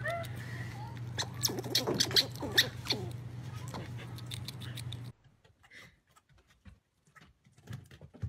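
Gray squirrel eating a snack: a run of small sharp nibbling and crunching clicks over a steady low hum. The sound cuts off about five seconds in, leaving only a few faint taps.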